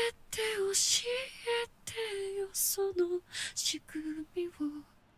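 A woman's voice singing softly in Japanese over very sparse backing, in short phrases that step downward in pitch, with breathy, hissing sounds between the phrases; the singing stops near the end.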